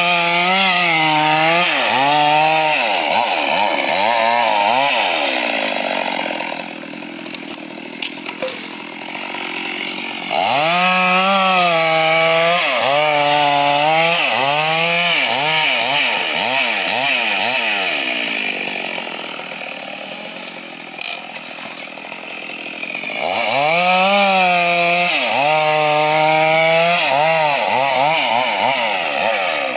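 Chainsaw revving in three bouts of repeated rising and falling bursts, dropping back to a lower idle between them, as it cuts wooden fence posts.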